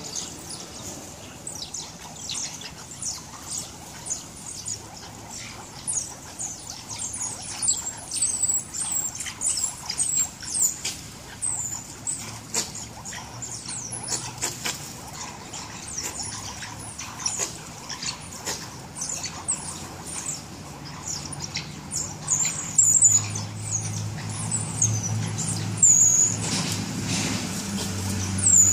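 A troop of mongooses giving many short, high-pitched chirps, coming thicker and louder toward the end, with scattered light clicks and rustles.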